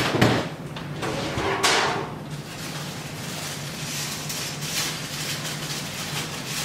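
A kitchen drawer being pulled open with a knock, then sliding and rattling about a second later, followed by quieter handling noises while someone gets out a spoon. A steady low hum runs underneath.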